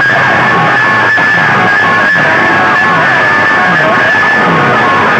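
Very loud music blasting from a bank of horn loudspeakers on a competition sound-box rig, with a falling bass sweep repeating about every two-thirds of a second.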